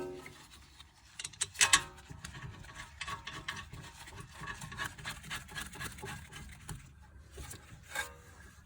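Metal clinks and ringing strikes from hand tools and brake caliper bolts being handled. The loudest clink comes a little under two seconds in and another near the end, with quick light ticking and rubbing between them as the caliper bolts are threaded in.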